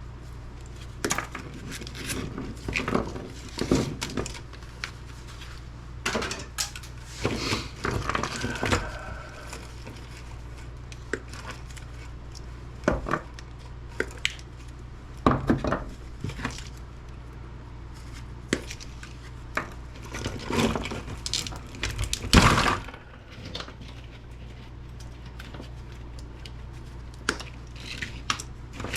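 Scrap wires and small parts being handled, with irregular clicks, knocks and short bursts of clatter as pieces are moved and dropped, the loudest clatter about two-thirds of the way in. A steady low hum lies underneath throughout.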